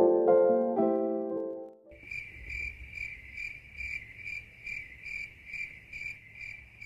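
Soft piano music fading out over the first two seconds, then a night ambience of crickets chirping in a steady high pulse, a little over two chirps a second, over a faint low hum.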